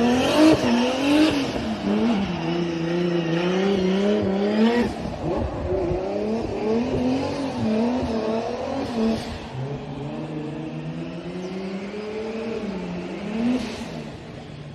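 Race car engine revving hard, its pitch climbing and dropping again and again as the car drifts through the corners, fading as it drives away.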